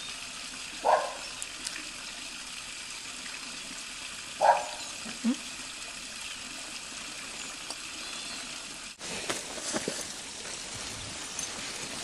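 Domestic cats meowing: two short meows, about a second in and again about three and a half seconds later, over a steady hiss. After a break near the end come scattered footsteps and rustles on a wet grassy path.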